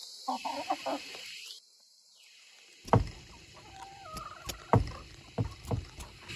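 Hens clucking, broken by a few sharp knocks, the first and loudest about three seconds in.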